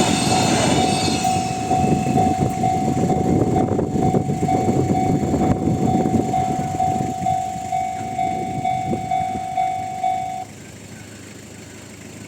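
A Japanese level-crossing alarm in the Tohoku-type electronic tone rings in quick even pulses, about two a second, while a freight train's wagons roll past with a rumble and wheel clacks that thin out and fade. The alarm cuts off about ten seconds in.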